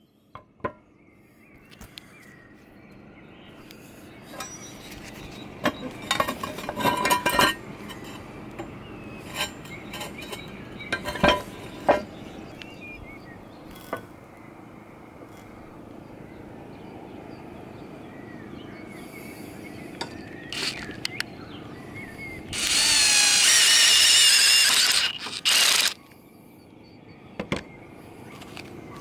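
Scattered metallic clinks and knocks of metal roof hooks being handled and fitted against roof tiles and a wooden batten. Near the end a cordless power tool runs for about three seconds with a high, wavering whine.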